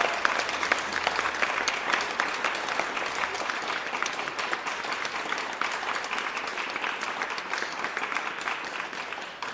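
Large audience applauding: a dense, steady wash of many hands clapping, easing off slightly toward the end.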